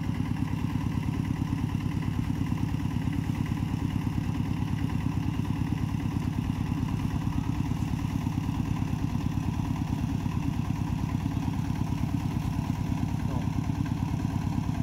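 Small engine idling steadily, with a fast, even pulse that does not change.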